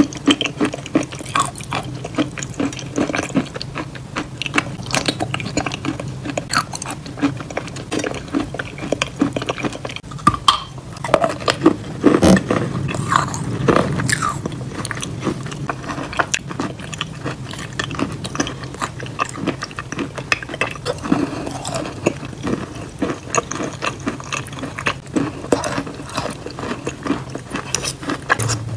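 Close-miked eating of wet chalk paste: sticky chewing and lip smacking, dense with small wet clicks, along with a spoon working through the thick paste in the bowl.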